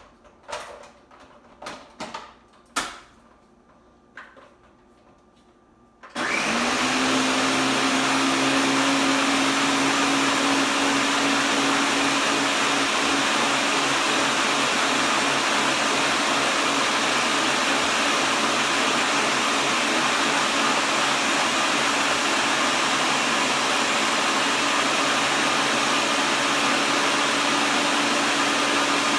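A few clicks and knocks, then about six seconds in a countertop blender motor starts, spins up quickly and runs steadily, blending a liquid protein shake with banana.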